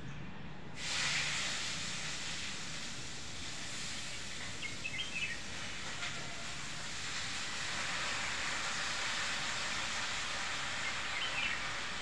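A steady outdoor hiss comes in suddenly about a second in and holds, with a few faint bird chirps in two short clusters, near the middle and near the end.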